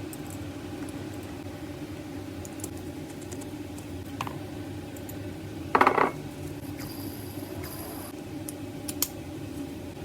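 Small metal parts of a fishing reel clicking and clinking as it is taken apart by hand, with one louder ringing clink about six seconds in, over a steady hum.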